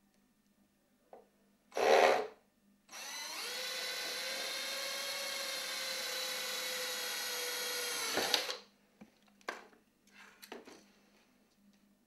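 Handheld power drill boring 3 mm holes into the aluminium patio door track, running at a steady whine for about five and a half seconds before it stops. About two seconds in, a brief loud noisy burst comes first, and a few light clicks follow near the end.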